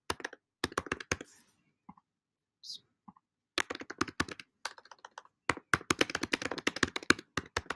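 Typing on a computer keyboard. A short run of keystrokes is followed by a pause of about two seconds holding only a faint click or two, then a longer, faster run of keystrokes.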